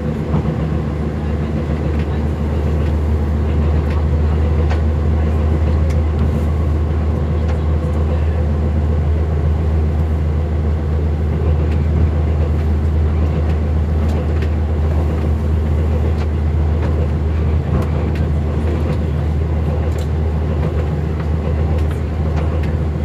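MAN railbus's diesel engine running with a steady low hum, heard from the driver's cab, with a few faint clicks over it.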